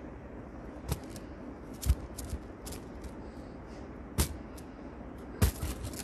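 Plastic fidget toys being handled close to the microphone: scattered sharp clicks and knocks, four of them louder than the rest, with lighter ticks in between.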